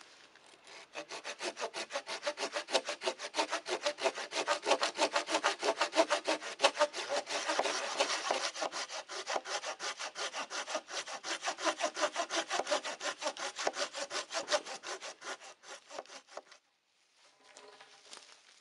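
Hand saw cutting through a dead tree trunk in fast, even back-and-forth strokes that stop suddenly a couple of seconds before the end. Softer rustling follows as a cut log is dragged through dry leaves.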